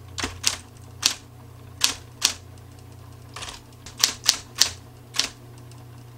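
Typewriter keys striking the paper one after another in an uneven typing rhythm, about a dozen strokes, over a steady low hum.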